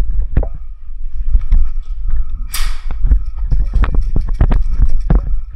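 Footsteps and gear knocking close to a body-worn camera, with a low rumble of handling noise. There is a short hiss about two and a half seconds in.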